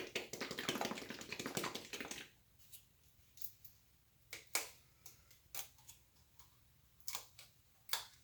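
About two seconds of dense crackling and rustling as yellow acrylic paint is added, then a scatter of about seven light, separate clicks and taps.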